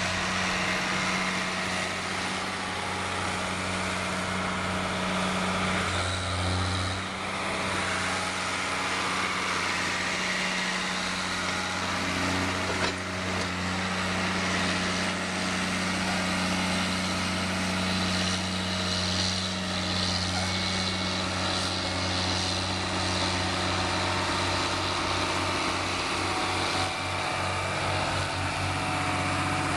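Diesel engine of a John Deere 9200 four-wheel-drive tractor running steadily under load as it pushes and packs chopped grass silage with a front blade.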